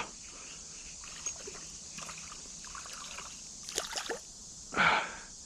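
Water splashing and sloshing as a hooked largemouth bass thrashes at the surface while it is reeled in, over a faint steady run of creek water. There is a cluster of sharp splashes about four seconds in and a louder splash near the end.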